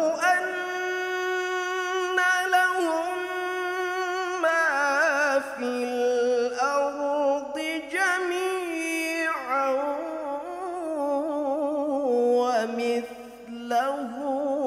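A man's voice reciting the Qur'an in the melodic tilawah style into a microphone, holding long, ornamented notes that wind up and down in pitch, with a short break for breath near the end.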